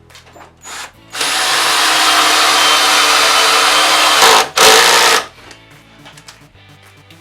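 Ryobi R18DD3 18 V cordless drill running steadily for about three seconds, stopping briefly, then running again for under a second.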